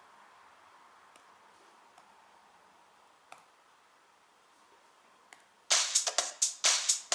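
A few faint clicks over low hiss, then a techno beat from a drum machine track played back in a mobile music app starts suddenly near the end, with a fast run of loud, sharp drum hits.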